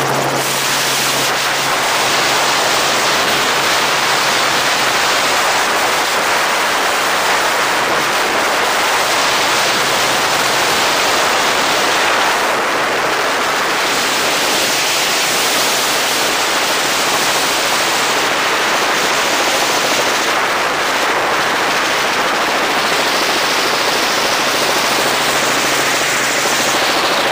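Robinson R44 Raven II helicopter in flight, heard from a camera mounted outside the cabin: rotor and engine noise mixed with loud, steady wind rush on the microphone.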